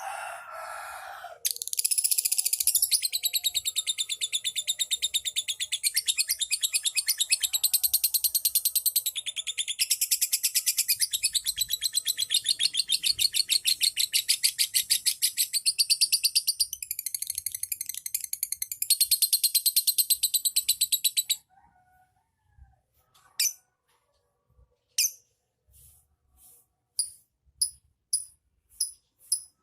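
Lovebird giving its long 'ngekek' chattering song: a very rapid, high, continuous trill that runs for about twenty seconds, then breaks off into single short chirps about one a second. A brief lower call sounds at the very start.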